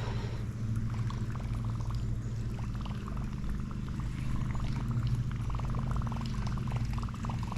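Fishing reel being cranked to retrieve a topwater lure: a steady low whirr with fine, rapid clicking throughout.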